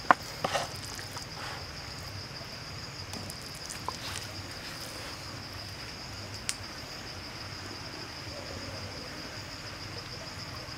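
Steady high-pitched insect chirring, like crickets, with a sharp knock of a wooden spoon on a wooden chopping board just after the start. A few faint clicks follow as the cabbage leaf is handled.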